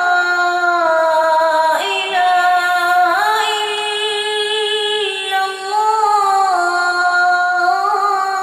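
A child's high voice reciting the Quran in melodic tajweed style, drawing out long held notes that bend and slide between pitches, with brief breaths between phrases.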